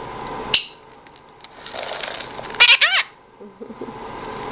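Peach-fronted conure calling: a sharp, high chirp about half a second in, and a short run of squawky, arching call notes near three seconds, with some rustling between.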